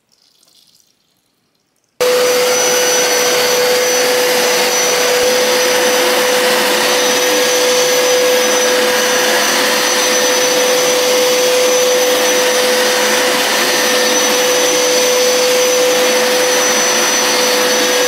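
Hoover PowerScrub Deluxe carpet cleaner starts abruptly about two seconds in, then runs steadily: its suction motor makes a loud, even rushing noise with a steady tone in it as it scrubs the carpet and sucks the water back up into its tank.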